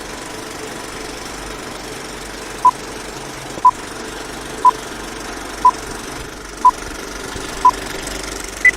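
Six short electronic beeps, all at one pitch and spaced one second apart, then a single higher-pitched beep near the end, the pattern of a countdown or time signal, over a steady background hum.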